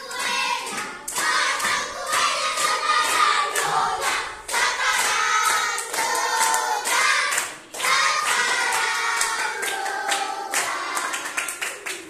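A class of children singing a birthday song together in unison, with hand clapping along.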